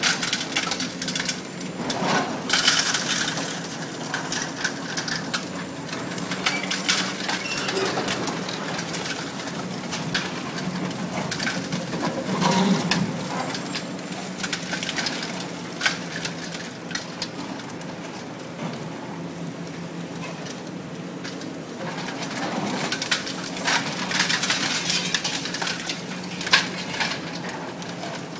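Excavator-mounted Lynx TC25RV demolition processor crushing a reinforced concrete wall: concrete cracking and crunching in the jaws, with scattered sharp knocks and heavier crunching spells, over a steady engine hum. A hydraulic breaker hammers in the background.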